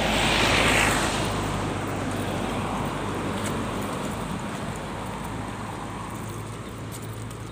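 A road vehicle passing close by, its tyre and engine noise loudest about a second in and then fading away over the following seconds.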